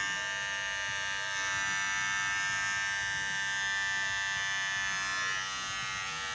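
Wahl Groomsman T-Pro cordless beard trimmer running without cutting hair: a steady electric buzz made of many tones, strongest in the upper range. It is a little loud for a trimmer, with a sound much like a hair clipper.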